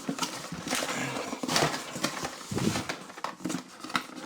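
A cardboard box and its packaging being handled and opened by hand: irregular rustling, scraping and small clicks, with a louder scrape about a second and a half in.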